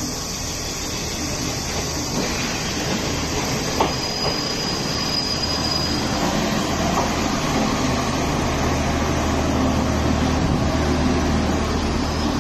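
Kominato Railway KiHa 200 diesel railcar moving slowly past close by, its diesel engine running with a steady low hum under the rumble of wheels on the rails. A thin, high wheel squeal sounds briefly a few seconds in.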